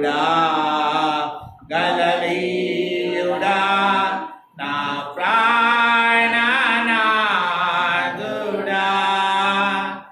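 A man singing a devotional song solo into a hand microphone, unaccompanied, in long held phrases with short breaks for breath between them.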